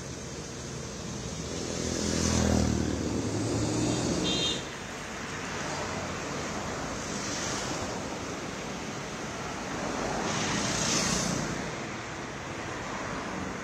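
Truck-mounted anti-smog mist cannon blowing a steady rush of fine water spray from its fan-driven barrel. A vehicle drives past with an engine rumble about two seconds in, and the rushing swells again near eleven seconds.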